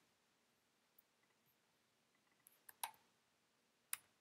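A few faint, scattered clicks from computer keys or buttons against near silence: one about a second in, a quick pair near three seconds, and one near the end.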